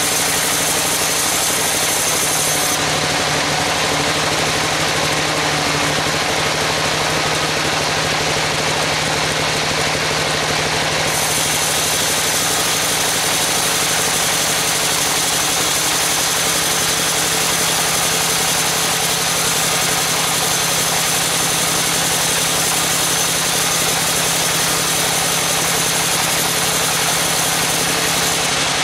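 Bandsaw mill running steadily, its blade ripping lengthwise through a teak log: a continuous loud whir and hiss over a steady low hum from the machine.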